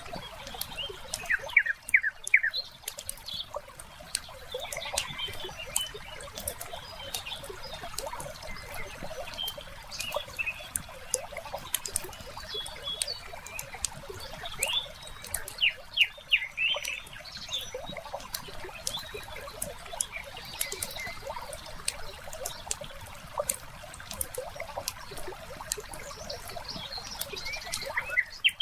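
Wood fire crackling, with frequent sharp pops over a soft hiss. Birds chirp now and then in quick short calls, about two seconds in and again midway.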